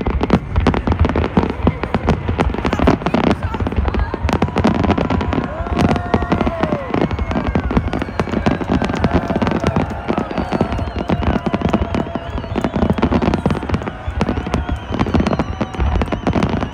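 Fireworks and firecrackers going off in quick succession, a dense, continuous rattle of bangs and crackles, with people's voices in the crowd mixed in.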